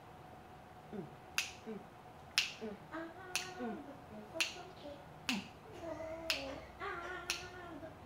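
Fingers snapping in a steady beat, about once a second, with a woman humming a wordless tune between the snaps.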